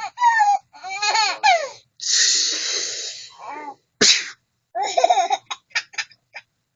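A baby laughing in high-pitched bursts, with an adult's fake sneeze, a long hissy burst, about two seconds in. A short sharp burst follows about two seconds later, then the baby laughs again in a run of short bursts.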